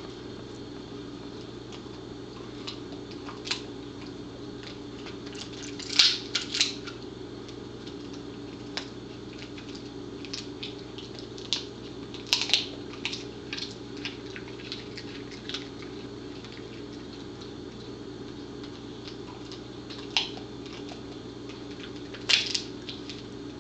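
Pembroke Welsh Corgi chewing a bully roll, a stuffed beef-gullet treat: scattered sharp crunching clicks of teeth on the hard chew, some in quick clusters of two or three, over a steady low hum.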